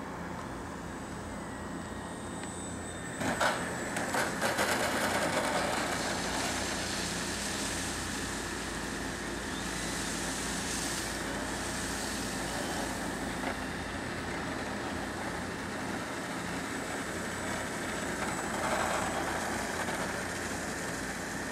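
Brushless electric motor of a model Piper Cub whining steadily as the plane comes down and taxis on asphalt. About three seconds in, a louder stretch of sharp clatter and scraping fits the wheels touching down on the pavement.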